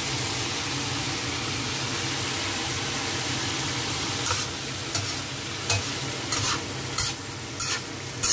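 Bean sprouts and smoked duck sizzling in a wok with a steady hiss. About four seconds in, a spatula starts stirring and tossing them, with a scraping stroke about every two-thirds of a second.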